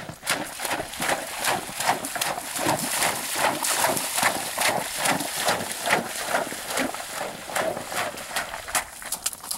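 Horse trotting through shallow water, its hooves splashing in a steady rhythm of a few strides each second.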